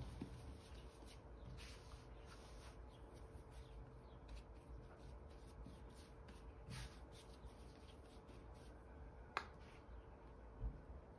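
Faint soft rubbing and patting of hands rounding a ball of floured yeast bread dough, with one sharper tap about nine seconds in, over a faint steady hum.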